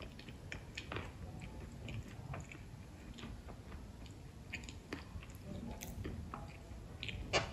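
A person chewing a mouthful of dahi puri, with soft wet mouth sounds and scattered small clicks. A sharper click comes near the end.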